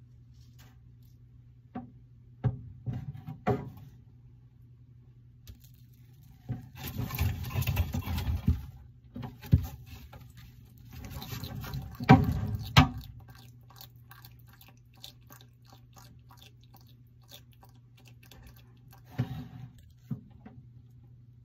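Irregular clicks, knocks and scrapes as a bearded dragon is fed from tweezers in its enclosure, with two longer scratchy stretches near the middle and the loudest clicks about twelve seconds in, over a steady low hum.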